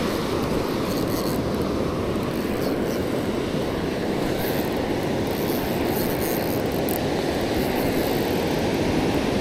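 Steady rushing noise of surf washing up a sandy beach, with no breaks or pauses.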